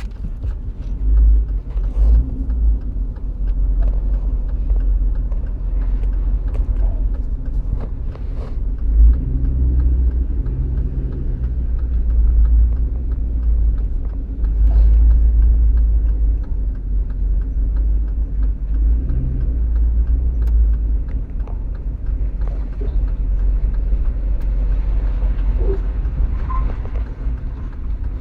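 GMC Yukon Denali on the move: a steady low rumble, with faint short creaks and ticks every few seconds and a brief squeak near the end.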